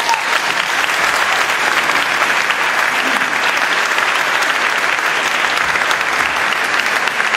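Concert audience applauding: steady clapping of many hands at the end of the piece.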